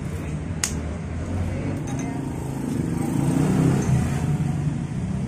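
A motor vehicle engine going by, getting louder about halfway through and then easing off, with one sharp click early on.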